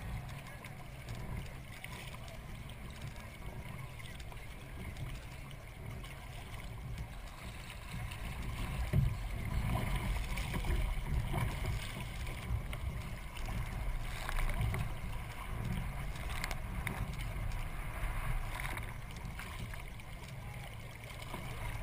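Kayak paddle strokes splashing and water lapping at the hull, over a steady low rumble that grows louder about eight seconds in.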